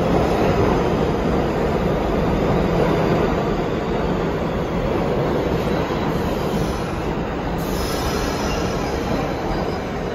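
New York City subway train running along the rails through the station, a steady loud rumble with wheel squeal. It eases off slightly as it goes, and faint high squeal tones come in about eight seconds in.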